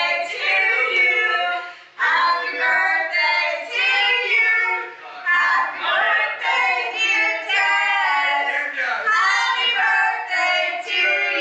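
Group of women singing together, with a short break about two seconds in.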